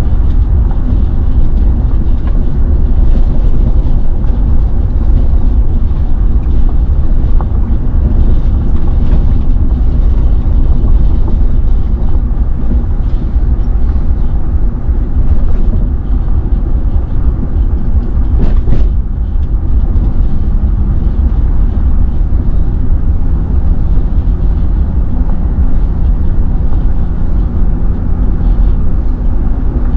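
A car on the move: a steady low rumble of road noise and engine, with one brief knock about nineteen seconds in.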